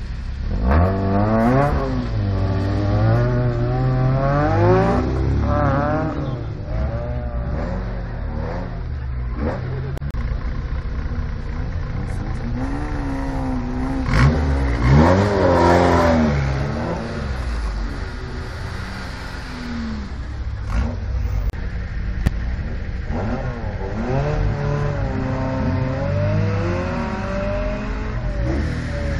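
Historic rally cars launching from a stage start line one after another. Each engine revs hard and climbs up through the gears as the car pulls away: a run about a second in, the loudest about halfway, and another near the end. Between launches, waiting engines run at idle.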